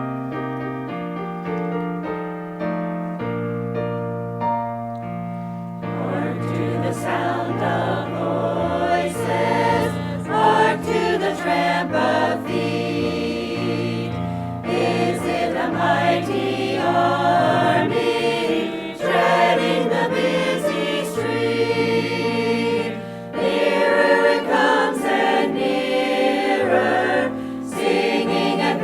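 A choir singing with piano accompaniment. The piano plays alone for about the first six seconds, then the voices come in.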